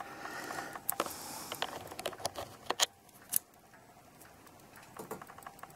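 Small metallic clicks and taps of brass clock-movement parts and a steel pivot-locating tool as the verge is worked back into its pivot hole between the plates. The clicks are irregular, with two sharper ones about three seconds in.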